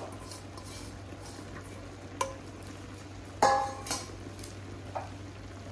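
Steel utensils clinking against a large steel cooking pot: a few separate clinks, the loudest about three and a half seconds in with a short metallic ring, over a steady low hum.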